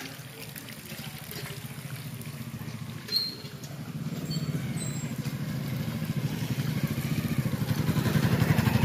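A small commuter motorcycle's engine putters at low speed as it approaches, growing steadily louder.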